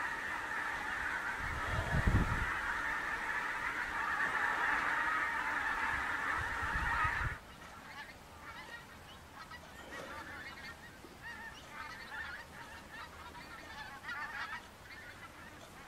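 A large flock of pink-footed geese flying overhead, honking in a dense, continuous chorus. About seven seconds in the sound drops suddenly to quieter, more scattered honking. A brief low rumble about two seconds in is the loudest moment.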